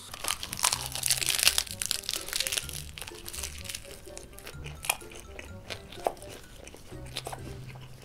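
The plastic film wrapper of a convenience-store triangle kimbap is torn open and crinkled for the first three seconds or so. Then the crisp seaweed-wrapped rice ball is bitten into and chewed, with scattered crunching clicks, over background music.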